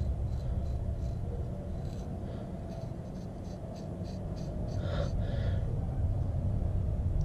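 Freshly sharpened knife blade shaving hair off a forearm: a series of faint, short, dry scrapes over a low steady hum, a test of the edge's sharpness.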